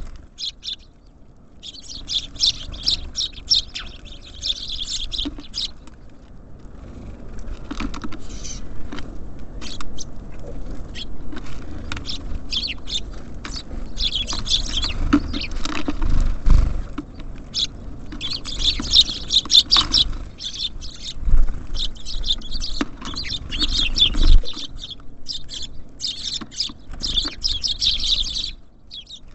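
Small songbirds chirping and chattering in dense bursts at a bird feeder, with sharp pecking and scrabbling taps and a few low thumps of birds landing on or knocking the feeder.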